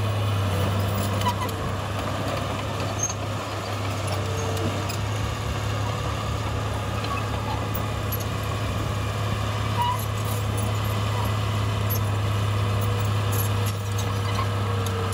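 Heavy diesel earthmoving machinery running steadily, a constant low engine drone with no revving or pauses.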